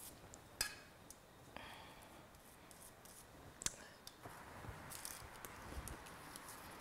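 Faint scratchy brushing of a pastry brush spreading sticky glutinous rice flour paste over a sheet of nori, with a few light clicks, the sharpest about three and a half seconds in as the brush is dipped into the steel saucepan.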